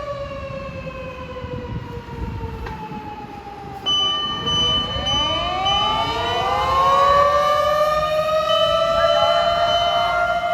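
Fire engine sirens on an emergency run. One siren's wail slowly drops in pitch, then about four seconds in a louder siren starts up, winding up in pitch and holding a steady wail, with a steady higher tone sounding alongside.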